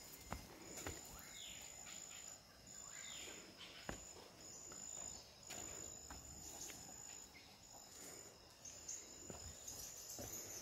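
Insects trilling high and steady in repeated stretches of about a second each, with a few soft knocks of footsteps on wooden boardwalk planks.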